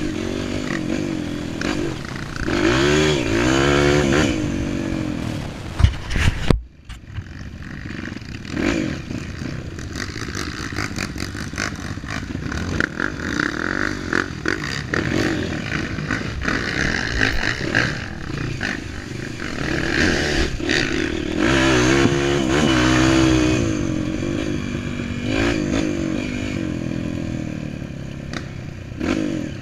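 Dirt bike engine revving up and down while riding an off-road trail, with knocks and rattles from the bike over rough ground. The sound drops away suddenly for a moment about six and a half seconds in, then the engine carries on.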